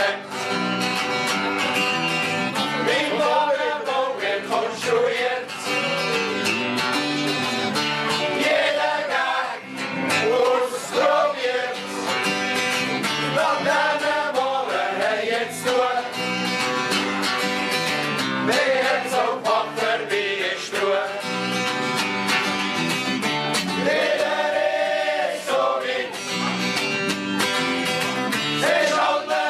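A group of men singing a song together in chorus, live, to a strummed acoustic guitar and an electric bass guitar.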